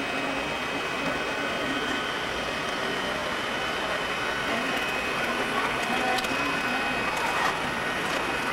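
Steady airport background noise: a constant rushing hum with a thin high whine running through it, typical of a parked jet airliner and the ramp around it.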